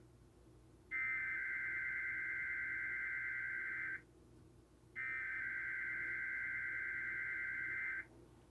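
Emergency Alert System SAME header: the screechy two-tone digital data burst, heard twice in this stretch, each about three seconds long with a second of quiet between them, the repeated header that opens an EAS message.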